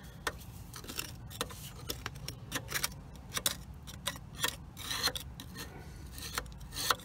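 A stiff brush scraping and dabbing at thick sludge around the drain of an old Aerograph air compressor's crankcase, making irregular short scrapes and clicks. The sludge is the compressor's sump oil turned to a gunk of oil and water that was no longer lubricating.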